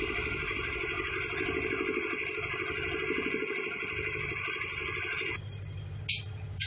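An engine idling steadily with a fast, even pulse. About five seconds in it drops away to a low hum, and a brief sharp hiss follows near the end.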